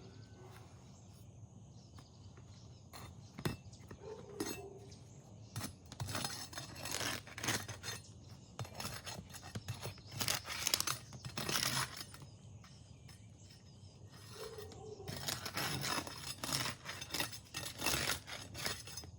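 Asphalt roof shingle tabs being lifted and their sealant strip pulled apart, crackling and scraping in several bursts of a second or two each; the seal comes apart easily.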